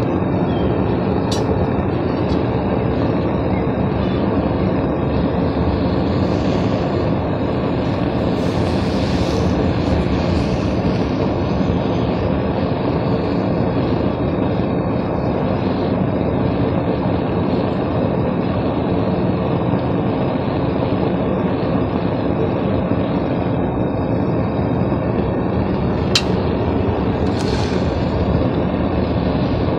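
Propane-fired Devil Forge melting furnace burner running with a steady, loud rushing noise while aluminium scrap melts in the crucible. A few sharp clicks come through, one about a second in and one near the end.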